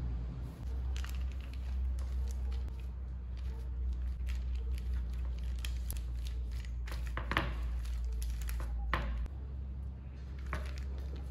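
A clear plastic bag crinkling and rustling as hands lay it over banana pieces on a wooden cutting board, with a few sharp handling clicks, the loudest about seven and nine seconds in. A steady low hum runs underneath.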